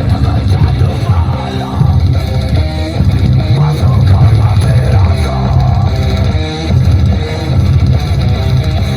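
Rock music with electric guitar and heavy bass, played loud through a sound system that is being tested.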